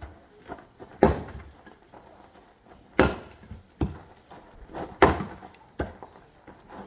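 Axe splitting firewood: three heavy chops about two seconds apart, each a sharp crack of wood splitting, with lighter knocks in between.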